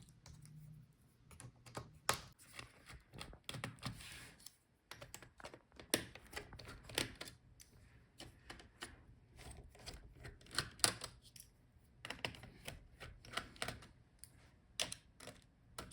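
A screwdriver and small screws clicking and tapping irregularly as the screws holding a laptop's cooling fan are undone and the parts are handled.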